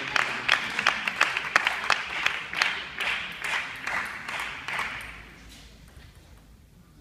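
Crowd of spectators applauding between points of a table tennis match, dense clapping that tapers off and dies away about five seconds in.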